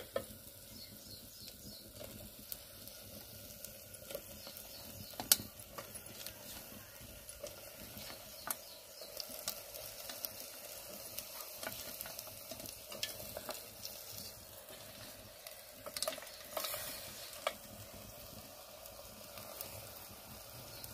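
Chicken pieces and masala sizzling in a metal pot over a wood fire as they are stirred in with a metal ladle, with scattered sharp clicks and taps.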